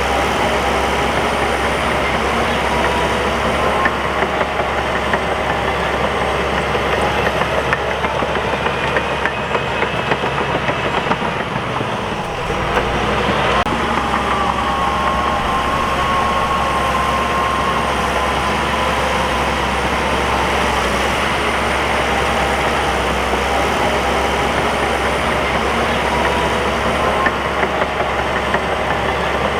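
Crawler bulldozer's diesel engine running steadily while it works, with a faint whine over it; the engine note dips briefly about twelve seconds in.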